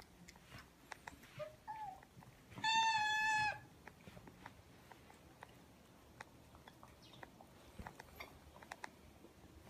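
A cat meowing: two short calls, then about three seconds in one loud meow lasting about a second on an even pitch. Faint scattered ticks and taps around it.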